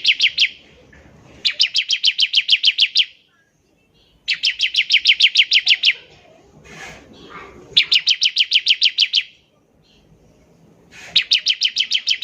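Bar-winged prinia (ciblek) singing its 'ngebren' song: fast rattling trills of high chirps, about eight notes a second. Each trill lasts about a second and a half, and they repeat every few seconds.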